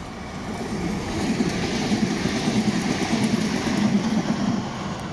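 HLB electric multiple unit passing close by: the rumble and hiss of wheels on rail build up, are loudest through the middle, and ease off near the end as the train goes by.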